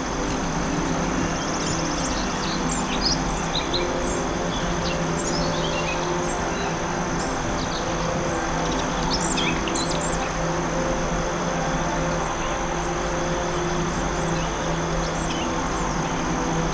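Forest ambience: small birds chirping in quick short series over a steady rushing background with a low drone and a constant high thin tone. The chirping is busiest in the first ten seconds and thins out after that.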